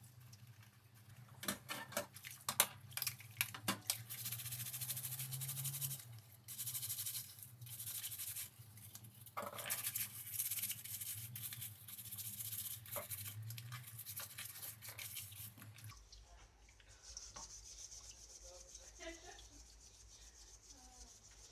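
Hand rubbing and scraping strokes on a workpiece, with a few sharp clicks in the first seconds. About 16 seconds in the sound changes abruptly to fainter handling noises.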